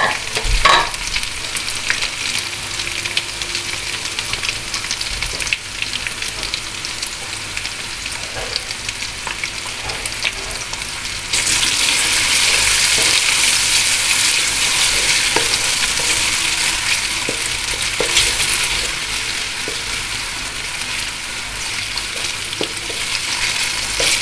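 Chopped onion sizzling in hot oil in a metal kadhai while a wooden spatula stirs and scrapes it, with a single knock about a second in. The sizzle steps up and gets louder about eleven seconds in.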